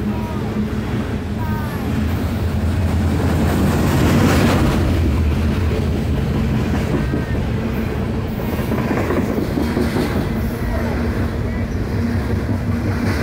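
Loaded coal hopper cars of a freight train rolling past, a steady low rumble of steel wheels on rail that swells a little about four seconds in.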